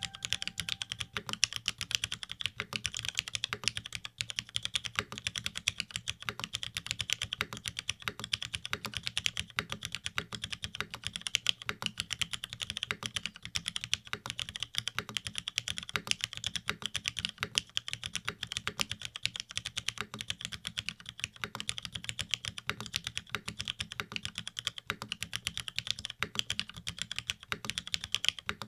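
Continuous fast typing on a NEO80 mechanical keyboard built with a carbon-fibre plate, sandwich mount and no foam, fitted with lubed Cherry MX Black linear switches and GMK keycaps: a dense, even stream of key strikes.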